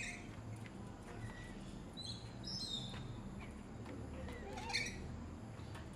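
Parrots calling in an aviary: a handful of short, shrill calls, with a cluster about two to three seconds in and another near the end, over a steady low background hum.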